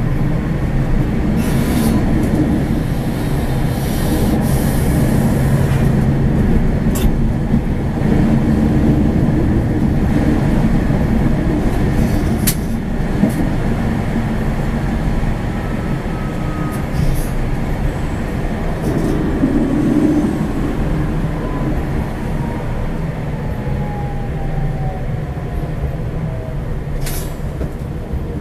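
Tram running on its rails, heard from the driver's cab: a steady rumble of wheels on track with occasional sharp clicks over rail joints, and a faint motor whine that rises around the middle, then falls steadily over the last ten seconds or so as the tram slows for a stop.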